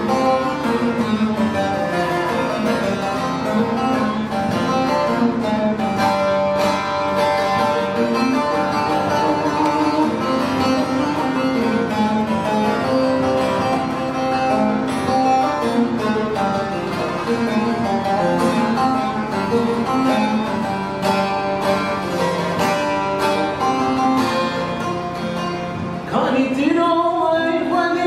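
Long-necked saz (bağlama) played solo, a run of plucked melody. About 26 seconds in, a man's voice comes in singing over it.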